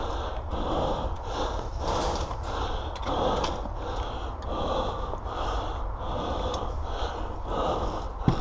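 A person's heavy breathing close to the microphone: a steady run of loud puffing breaths, about one or two a second, over a low rumble.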